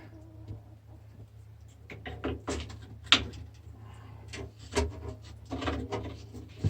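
Irregular knocks, clicks and rattles of a microwave oven's parts being handled and worked at during dismantling for scrap, with one sharp knock about three seconds in.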